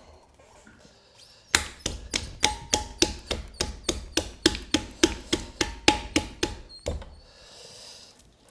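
Hands slapping a fresh ball of stoneware clay on a potter's wheel head, shaping and centring it before throwing. A quick run of wet slaps, about four a second, begins about a second and a half in and stops shortly before the end.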